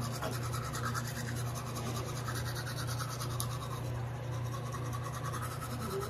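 Toothbrush scrubbing teeth in quick, even back-and-forth strokes, over a steady low hum.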